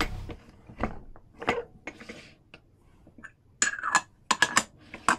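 Hand-lever button badge press being worked, making a series of sharp metallic clicks and clunks, with a cluster of louder ringing clanks about three and a half to four and a half seconds in.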